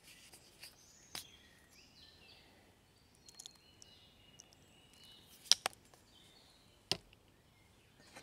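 A few sharp clicks and taps from a plastic squeeze bottle of barbecue sauce and the metal plate beneath it, the loudest a double click about five and a half seconds in and another about a second later. Faint bird chirps behind.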